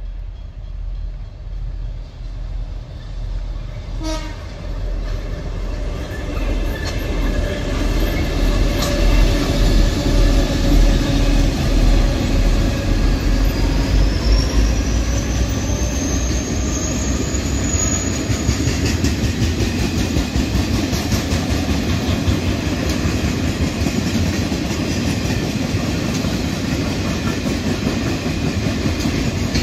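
Steel train hauled by two G class diesel locomotives approaching and passing. The engines grow louder over the first ten seconds, then the loaded steel wagons roll by with a steady rumble and wheel clatter. A thin high whine rises in pitch as the locomotives go past.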